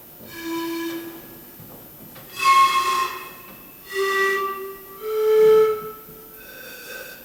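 A flute-like wind instrument playing a slow phrase of about five separate held notes, each under a second long with short gaps between them. The loudest, highest note comes about two and a half seconds in and carries audible breath.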